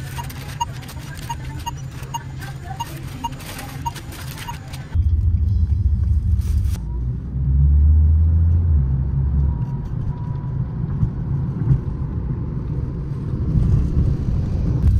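Car interior rumble, low and steady, from a taxi driving on a city road, starting abruptly about five seconds in. Before it comes a short stretch of shop sound with a quick regular series of short beeps.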